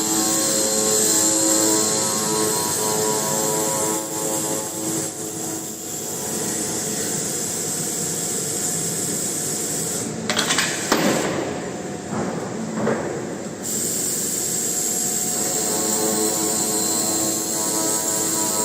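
A CNC high-speed metal circular sawing machine running, with a steady machine whine and hiss. About ten seconds in, a few seconds of louder, rougher noise break in before the steady running resumes.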